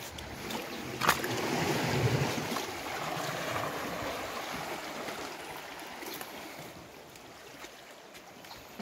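Small sea waves washing in and draining among shore boulders. The wash swells about a second in and slowly dies away, with one sharp tap at its start.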